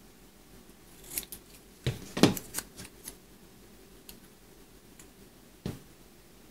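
Scissors snipping through a small piece of paper, a short run of quick cuts about one to three seconds in, followed near the end by a single knock on the table.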